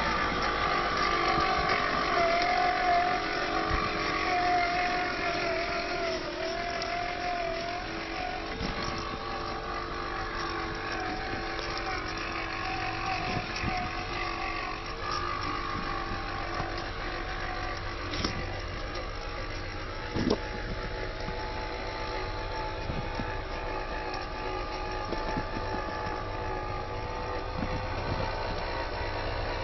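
Electric drive motor and plastic gearbox of a WPL C74-1 RC Suzuki Jimny whining as it drives, the pitch drifting up and down a little with the throttle. A couple of light knocks come in the second half.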